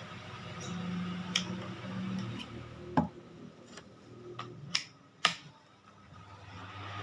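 A small Niko electric fan whirring, with about five sharp clicks near the middle. After the last click the whir drops away, then builds back up near the end.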